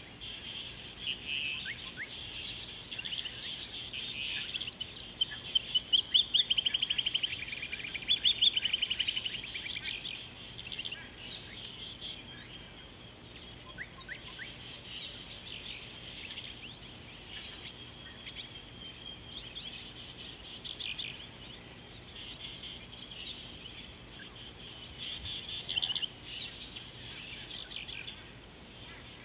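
Several birds calling and singing, with short chirps and whistles throughout and a loud run of rapid repeated notes about five to ten seconds in.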